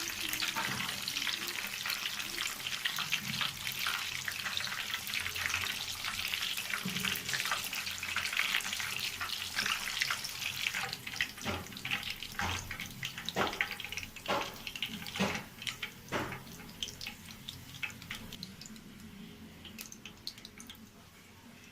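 Oat-coated chicken legs frying, with a dense sizzling crackle, then several louder separate pops a little past the middle, the sizzle dying down near the end.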